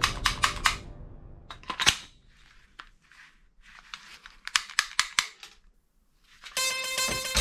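Sharp plastic clicks of a toy pistol being handled and worked: a quick run of clicks at the start, a couple more about two seconds in, and another run around five seconds in. Music comes in near the end.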